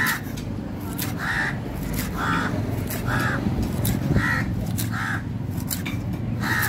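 Crows cawing repeatedly, about one short caw a second, with sharp knocks of a large knife cutting seer fish steaks on a wooden block, over a low steady background hum.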